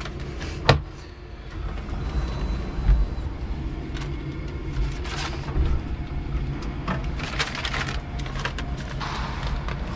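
Steady low hum in the cab of a stationary electric forklift, with a sharp click about a second in and a thump near three seconds. Paper rustles in short bursts as delivery papers are handled.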